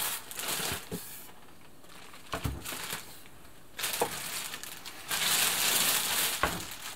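Clear plastic bag crinkling as it is pulled off a sewing machine, in a short burst at first and again, louder and longer, in the second half, with a couple of light knocks.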